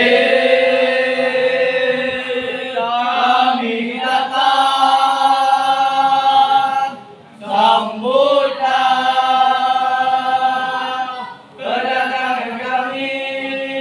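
A group of young male voices chanting in unison, a scout yel-yel, holding long notes in three phrases with short breaks about seven and eleven and a half seconds in.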